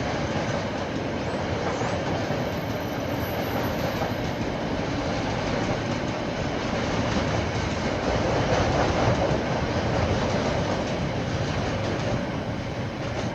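KiwiRail train rolling past, its wagons' wheels running over the rails, recorded through a security camera microphone. It gets louder about eight seconds in and starts to fade near the end.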